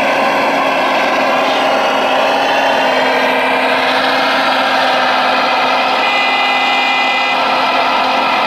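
Radio-controlled Liebherr 970 model excavator working its boom and log grapple: a steady, loud electric whine with several tones that shift slightly in pitch as the arm moves, a higher whine joining for a second or two past the middle.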